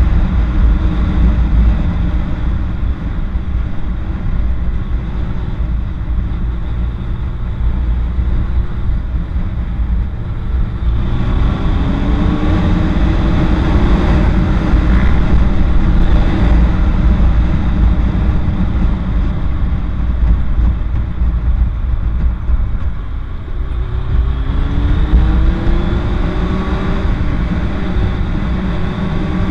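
Kawasaki Ninja 900 inline-four motorcycle engine running under way, heard from the rider's seat with heavy wind rush on the microphone. The engine note dips and then climbs in pitch twice, about 11 seconds in and again about 24 seconds in, as the bike accelerates.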